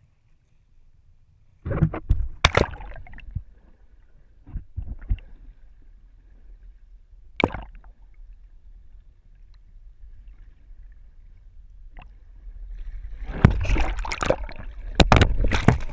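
Seawater splashing and gurgling around a pole-mounted GoPro camera as it is dipped under the surface and brought back up. A sudden burst of splashing comes about two seconds in, then a few isolated knocks, and heavy sloshing near the end as the camera breaks the surface.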